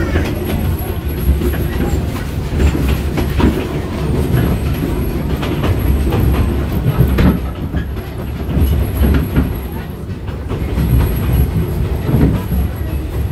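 Railroad car rolling along the track, heard from aboard an open car: a steady low rumble with irregular clicks and knocks from the wheels on the rails.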